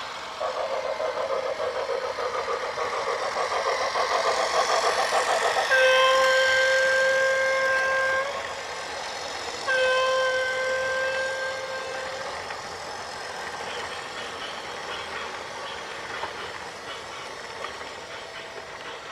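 A heavy vehicle's horn blown in two long, steady blasts, each about two and a half seconds, over a rattling mechanical rumble that is loudest before the first blast.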